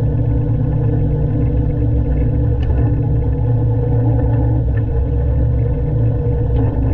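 Diesel engine of a 1970s Poclain LC80 excavator running steadily, with a low, even drone and a few faint ticks.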